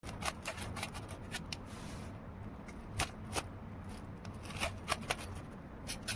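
Knife cutting down through a crisp fried ghevar topped with rabdi, giving a run of irregular sharp crackles and crunches.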